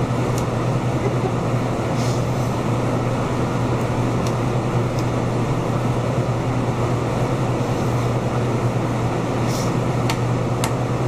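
Steady noise of a ventilation fan running, with a constant low hum. A few faint clicks and taps of knife work on the wooden butcher block come and go.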